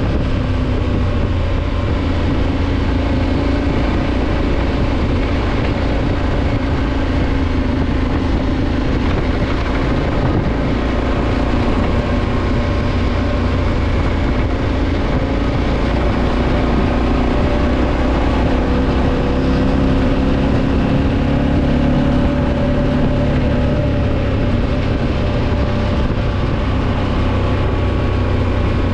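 Motorcycle engine running steadily while riding along a dirt track, its pitch drifting gently up and down with the throttle, under a constant rush of wind and road noise.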